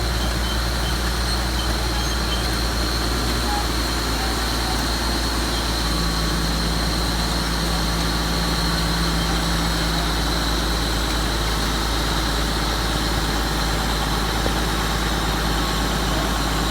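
Heavy diesel earthmoving machinery running steadily: a constant low engine drone with a thin high whine over it, and a deeper hum joining about six seconds in.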